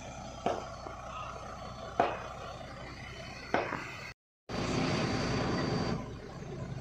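Heavy blows of a hydraulic pile hammer on an excavator-mounted piling rig, driving a concrete pile: three sharp strikes about a second and a half apart, each ringing briefly. After a short break, the rig's diesel engine runs steadily and louder with a thin high whine, then drops in level about a second before the end.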